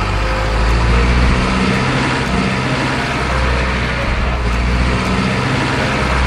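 Truck engine running steadily, a low continuous drone.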